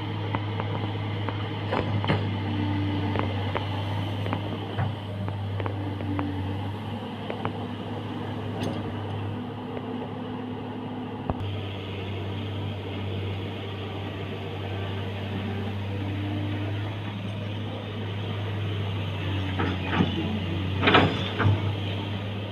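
Komatsu excavator running steadily, with a low engine hum and hydraulic whines that rise and fall as the arm works. Scattered knocks throughout and a burst of louder clatters near the end.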